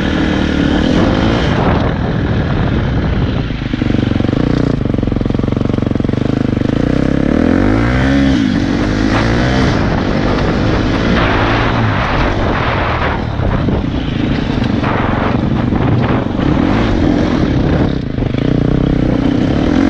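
KTM dirt bike engine running under the rider, revving up and back down about eight seconds in. Bursts of rushing noise come over it in the second half.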